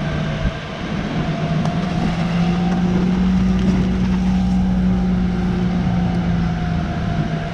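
Fire engine running steadily with its pump supplying water to a hoseline: a continuous low engine hum, slightly stronger through the middle.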